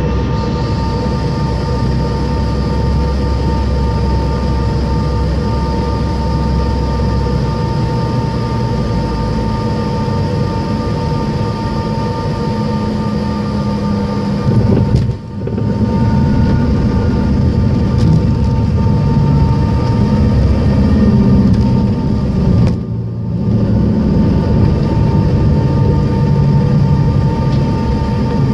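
Cabin noise of a Bombardier CRJ-700's rear-mounted turbofans on landing: a steady engine hum with several fixed whining tones. A jolt at touchdown comes about halfway through, then a heavier, louder rumble as the jet rolls out on the runway.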